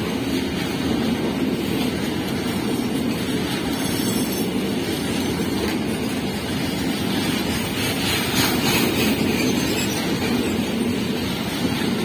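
Container freight train's loaded flat wagons passing close by, their wheels rumbling steadily over the rails.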